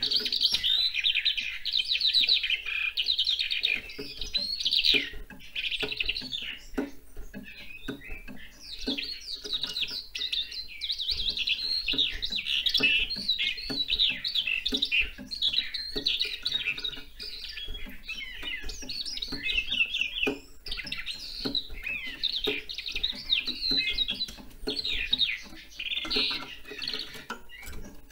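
Eurasian skylark singing its long, rapid, continuous warbling song, broken by a few short pauses.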